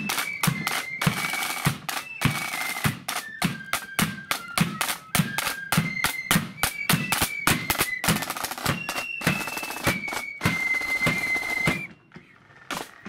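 A marching flute band in the blood-and-thunder style plays a tune on flutes over hard-struck side drums and a beating bass drum. The music stops near the end.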